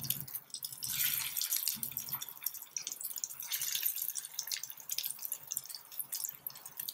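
Oil sizzling and crackling around breadcrumb-coated paneer pieces as they shallow-fry in a pan, a dense patter of fine pops throughout.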